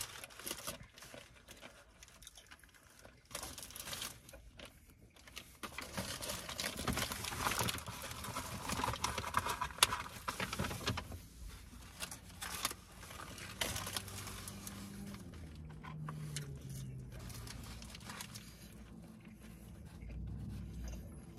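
Paper burger wrapper crinkling and rustling as it is handled, a dense run of small crackles that is busiest in the first half, with the mouth sounds of eating.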